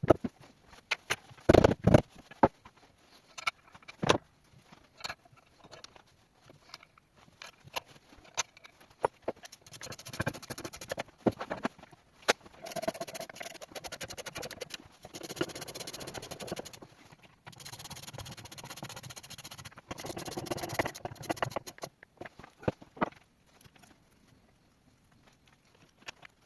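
Metal gearbox parts and hand tools clinking and knocking during reassembly of a manual transmission, then several stretches of steady rasping noise lasting a few seconds each.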